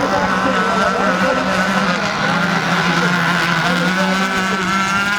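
Radio-controlled model racing boats running on the water, their motors making a steady high-pitched whine over a lower steady drone, the pitches wavering slightly as the boats race.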